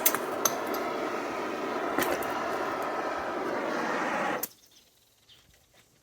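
A power tool running steadily with a few sharp metallic clicks, cutting off suddenly about four and a half seconds in.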